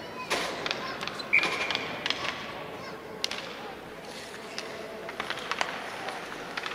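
Ice hockey rink sounds around a faceoff: sticks clacking on the ice and skates scraping, with scattered sharp clicks. A short high steady tone sounds once about a second and a half in.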